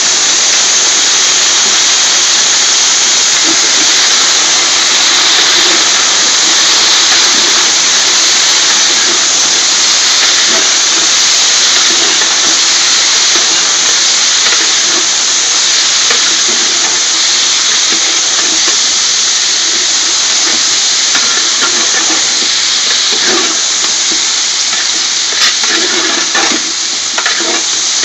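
Whole scotch bonnet peppers sizzling in hot oil in a metal pot, a loud, steady hiss. In the last third a metal spoon stirs them, clicking and scraping against the pot.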